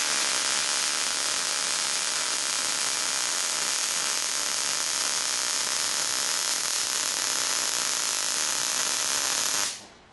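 MIG welding arc running a bead on eighth-inch steel plate at a low 14 volts, a cold setting. It makes a steady, even hiss that stops abruptly near the end.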